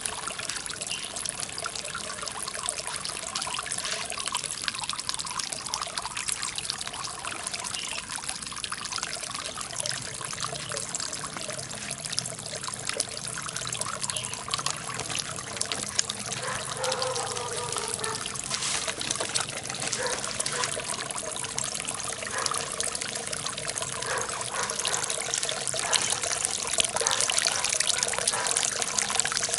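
Water from a homemade stoneware-jar fountain splashing and trickling steadily down into a small pond. It is a little louder near the end.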